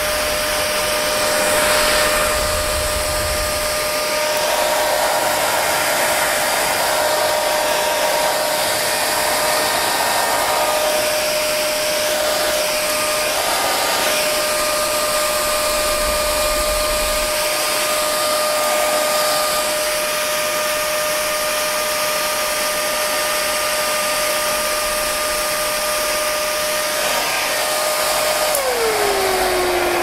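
Parlux 3500 hair dryer blowing steadily, a rush of air with a steady whine from its fan; near the end the whine drops in pitch.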